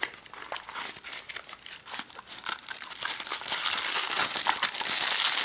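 Plastic packaging crinkling and a cardboard box flap rustling as a spare camera battery is slid out of its small retail box in a plastic wrapper. The crinkling grows louder about halfway through.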